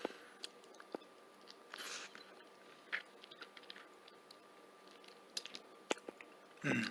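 Close, faint mouth sounds of a person chewing and sucking on a boiled chicken foot: scattered small clicks and wet smacks at irregular intervals.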